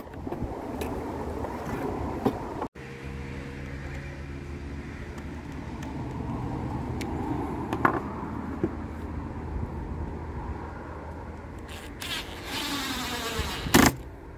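A yellow DeWalt cordless impact driver runs for about a second near the end, driving a screw into a concealed cabinet hinge on a wardrobe door. Under it is a steady low engine-like hum.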